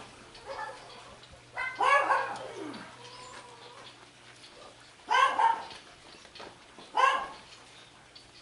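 A dog barking in short single barks a few seconds apart, three loud ones, the first drawn out a little longer and falling in pitch at its end.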